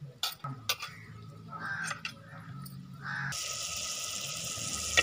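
Two sharp taps of a spoon on a cutting board, then, a little over three seconds in, chopped onions dropped into hot oil in a clay pot start sizzling with a sudden, steady hiss. Before the sizzle a crow caws twice.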